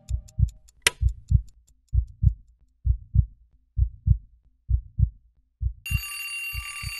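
A slow heartbeat sound effect, paired lub-dub thumps about once a second, over the fading tick of a clock, with a single sharp click about a second in. Near the end a twin-bell alarm clock starts ringing with a steady high ring.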